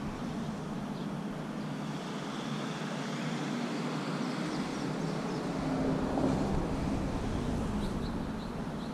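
City traffic: a steady low hum, with a vehicle rumbling past that swells a little after the middle and fades again. A few faint bird chirps near the end.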